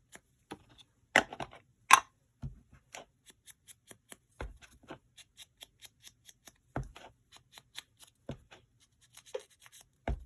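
Small craft scissors snipping through paper tickets joined in one strip, with paper handling and a few soft knocks on the table. Two louder sharp snips come a second or two in.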